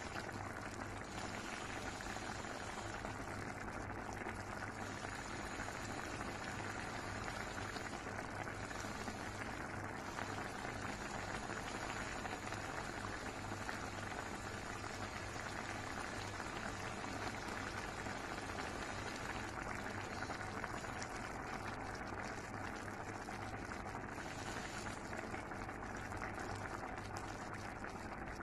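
Fish stewing in vinegar broth in an aluminium pot, the broth boiling steadily.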